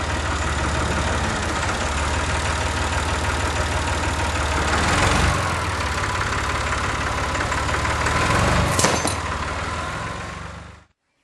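Farm tractor engine running steadily at low speed while pulling on a chained tree, with a sharp knock about nine seconds in; the sound cuts off suddenly near the end.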